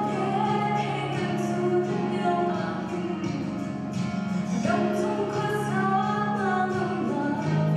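Female vocal trio singing a Christian song together into microphones, over steady held notes of instrumental backing.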